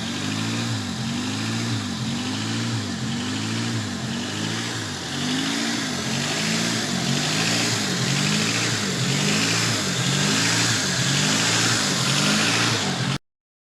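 1995 Honda Civic's D15B7 1.5-litre four-cylinder engine running with a blown head gasket, its pitch rising and falling in a regular surge about every two-thirds of a second. The sound cuts off suddenly near the end.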